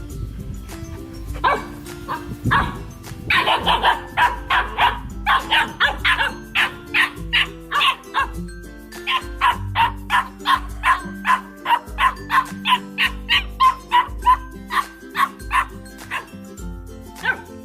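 Golden retriever puppy barking over and over in a quick, even series of short barks, about three a second, starting about one and a half seconds in, with background music underneath.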